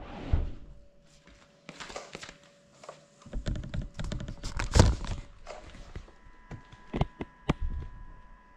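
Handling noise on the crashed FPV drone's camera as it is picked up off the floor: scattered knocks, taps and rustles, the loudest about five seconds in, with footsteps on the tiles. The propellers are not spinning. A faint steady high tone comes in about six seconds in.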